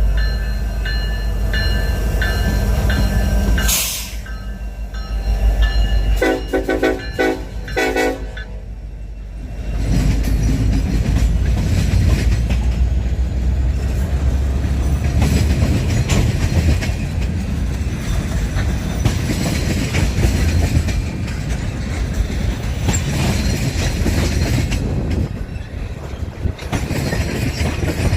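Union Pacific diesel locomotive's air horn blowing a string of short blasts over the deep rumble of the engine. About ten seconds in, the horn stops and the train's cars roll by with steady steel wheel and rail noise.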